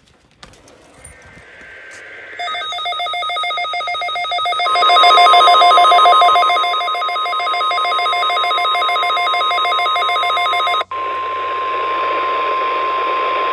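NOAA Weather Radio alert: a rapidly pulsing electronic alarm beeps for several seconds. About four and a half seconds in, a steady single-pitch 1050 Hz warning alarm tone joins it, broadcast as part of the weekly alarm test. The pulsing alarm cuts off with a click about eleven seconds in, and the steady tone carries on alone.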